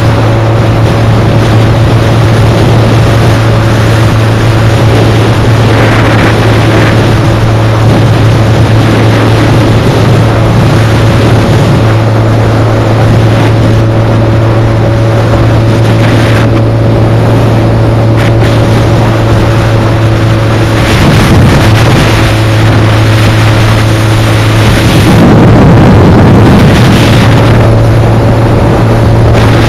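Suzuki Hayabusa's inline-four engine running at a steady cruise, buried in heavy wind buffeting on the camera microphone.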